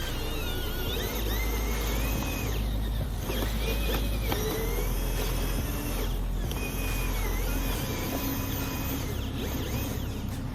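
Electric motors and gearboxes of radio-controlled model construction machines whining, the pitch rising, holding and falling in stretches of a second or two as the throttle changes, over a steady low hum.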